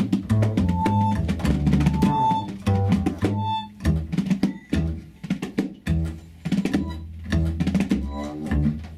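Free acoustic improvisation on vibraphone, tabla and double bass. Low bass notes sound under many quick hand-drum strokes. A clear high tone rings out four times in the first few seconds.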